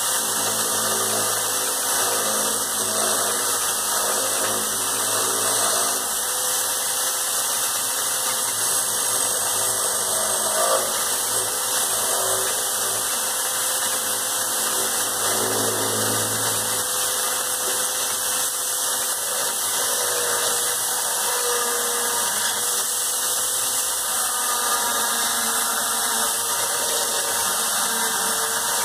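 Electric hand drill clamped in a vise, running continuously with a steady motor whine, turning a wooden knob like a lathe while a hand tool scrapes the spinning wood.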